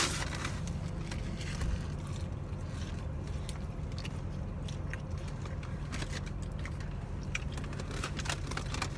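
Steady low hum inside a car, with faint rustling and small clicks from people handling food wrappers and eating.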